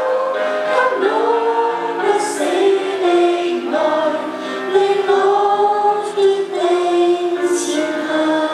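A small group of girls singing a Christian song together into microphones, holding long notes that change pitch every second or so.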